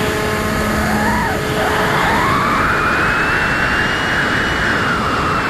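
Electric motor and propeller of a Bixler RC plane whining, recorded on board over a steady rush of wind. The whine climbs in pitch from about a second and a half in, holds, and falls away near the end as the throttle changes.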